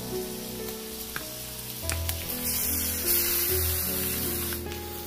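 Raw chicken pieces dropped into a hot wok of sautéing onion and garlic, sizzling in the oil. The sizzle swells sharply about two seconds in and falls back near the end.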